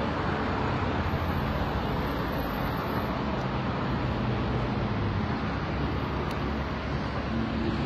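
Steady street traffic noise, an even rush with a low hum and no distinct events.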